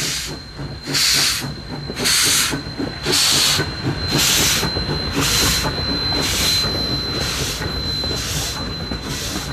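Steam locomotive pulling away with its train, chuffing steam in a loud hiss about once a second over the low rumble of the rolling carriages, with a thin steady high whine throughout.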